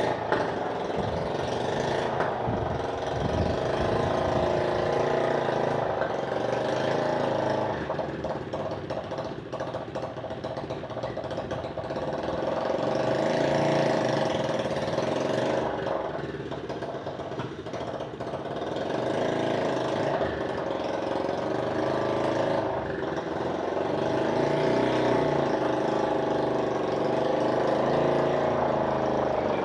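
Motorcycle engine of a small sand-hauling vehicle running steadily, its level swelling and easing a few times.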